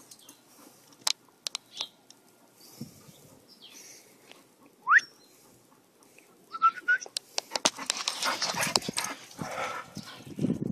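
English Bull Terrier giving a short, rising whimper about halfway through, with a brief higher squeak soon after, followed by a few seconds of scuffling and rustling close up.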